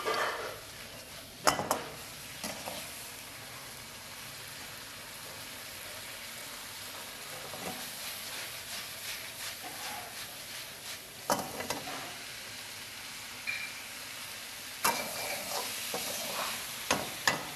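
Chilli chicken sizzling in a wok over a gas flame as it is stirred and tossed, with several sharp metallic knocks of the spatula against the wok.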